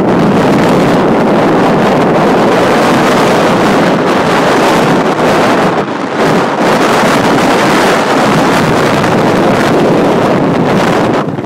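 Strong wind blowing across a phone's microphone, a loud, steady rushing noise that eases briefly about six seconds in and again near the end.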